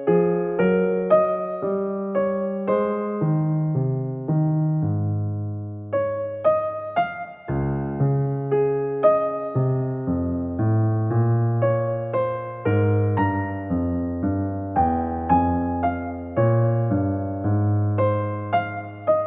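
Soft background music: a gently played electric piano, its notes struck and left to fade.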